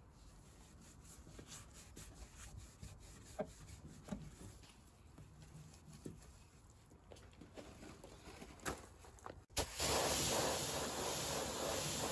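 Microfibre cloth rubbing and polishing a car's exhaust tip, faint with a few light clicks. About nine and a half seconds in, it cuts suddenly to the loud, steady hiss of a pressure-washer jet spraying onto car bodywork.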